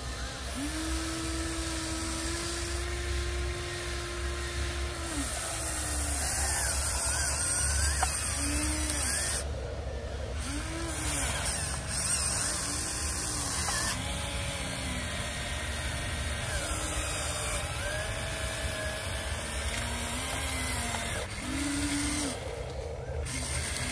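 Huina 1593 RC excavator's small electric gear motors whining as it swings, lifts and digs. There is one long whine first, then a run of short whines that rise and fall in pitch as each motor starts and stops.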